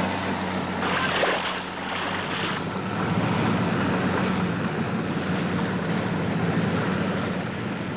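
Motor lifeboat's engines running steadily, with the rush and splash of sea water as the boat floats off its launching carriage and gets under way; a louder rush of water comes about a second in and lasts for a second or so.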